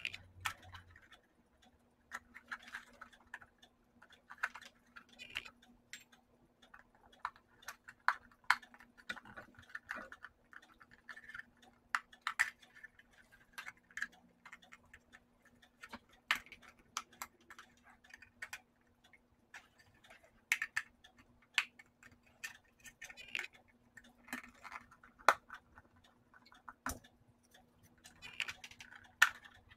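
Irregular clicks, taps and scrapes of a small plastic electric blanket controller case being handled and pried apart by hand, over a faint steady hum.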